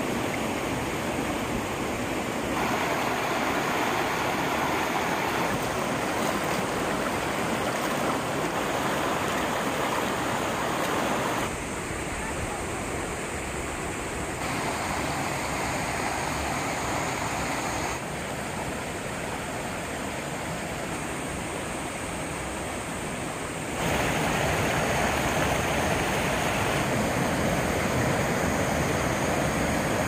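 Mountain stream rushing over rocks and cobbles: a steady noise of flowing water that changes abruptly in loudness and tone several times.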